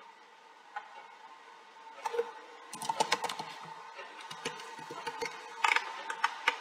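Keystrokes on a computer keyboard, in short irregular clusters from about two seconds in, over a faint steady hum.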